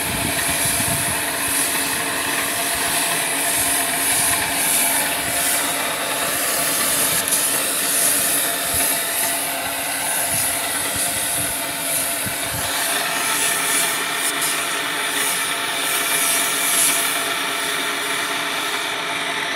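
Gravity-feed paint spray gun hissing as it sprays paint onto a sheet-metal gate, the hiss swelling and easing with each pass, over the steady drone of the air compressor feeding it.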